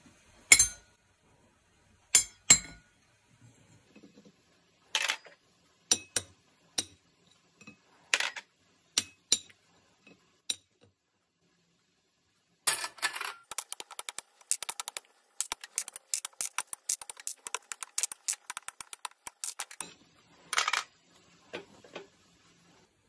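Small fluted tin tartlet molds clinking and clattering on a metal baking tray as baked pastry cases are popped out of them. Single sharp clinks at first, then a long run of quick light clicks of tin on tin and tray, and a louder clatter near the end.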